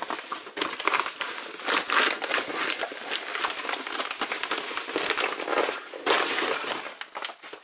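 White mailing bag crinkling and rustling continuously as hands handle it and work a box out of it.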